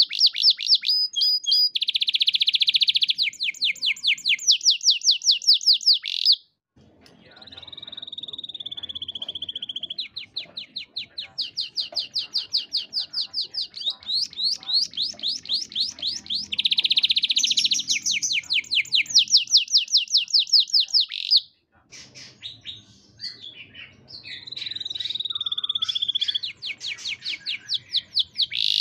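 Domestic canary singing a long, varied song: fast trills of rapidly repeated notes, buzzy rolls and drawn-out steady whistles. The song breaks off briefly about six seconds in and again near twenty-one seconds, then resumes.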